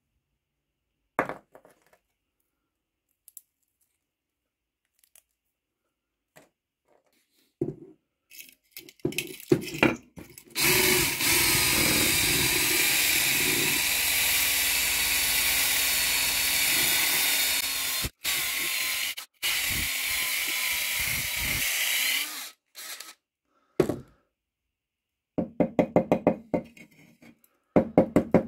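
A power drill spins a twisted-wire tube brush inside the corroded steel body of a Mauser K98 bayonet scabbard, scouring out rust with a steady whirring scrub for about twelve seconds. A few scattered knocks come before it. Near the end the scabbard is rapped on the wooden workbench in quick, regular taps, shaking out loose rust flakes.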